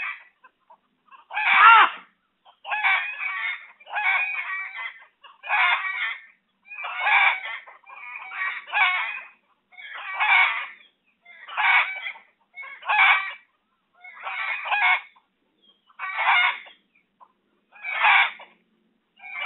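Domestic fowl calling over and over in a steady rhythm, a short call about every second or so.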